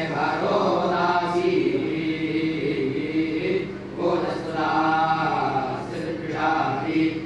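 Group of men chanting a scripture recitation (parayana) in unison into microphones, phrase after phrase, with a brief pause a little before the middle.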